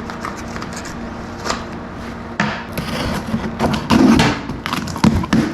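Knocks, clicks and clatter of furnace blower-motor parts being handled and worked on, over a steady low hum. The clatter gets busier and louder in the second half.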